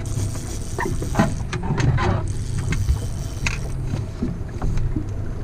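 Steady low running of a small fishing boat's motor, with a few sharp knocks and clatters of gear on the deck, ending as the landing net is grabbed to land a hooked salmon.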